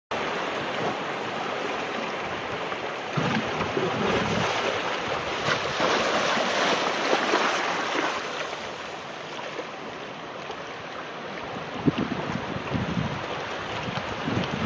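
Wind buffeting the microphone over rushing, splashing sea water. The noise swells about six to eight seconds in, and there are a couple of sharp knocks near the end.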